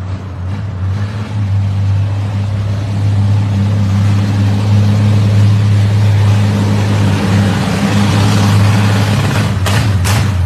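Chevrolet Caravan's six-cylinder engine running at a steady speed with a loud, deep exhaust rumble. A few sharp knocks come near the end.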